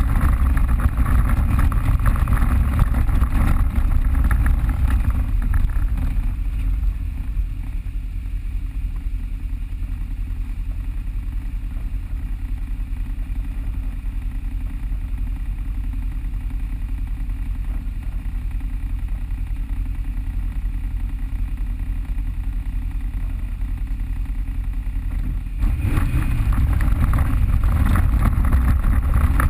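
Off-road vehicle engine running as it rides along a trail, a steady low rumble that eases off through most of the middle and picks up again near the end.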